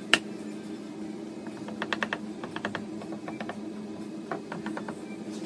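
Quick light taps of a small hammer on an end-grain chessboard held in bar clamps, knocking the glued squares level. A single sharp knock comes at the start, then short rapid runs of taps about two and four seconds in.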